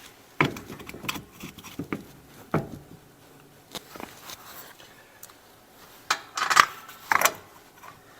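Scattered metallic clinks and knocks from tools, bolts and parts being handled while reassembling a car's rear wheel hub, with a louder cluster of clanks about six seconds in.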